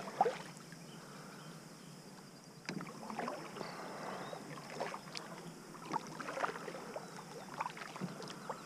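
Kayak paddling on calm water: irregular paddle splashes and drips, with a few small clicks. The splashing starts about three seconds in, after a quiet opening.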